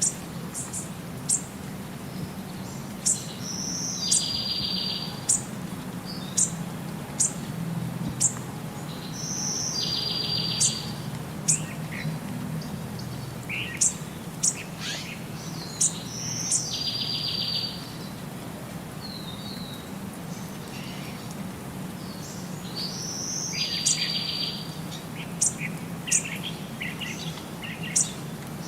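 Birds singing: one bird repeats a short song about every six seconds, a high note followed by a dry, buzzing trill, among scattered sharp high chirps. A steady low hum runs underneath.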